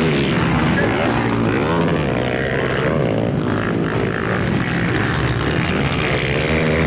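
Several 250cc motocross bikes racing around a dirt track, their engines revving up and dropping back again and again as the riders accelerate, shift and take the jumps.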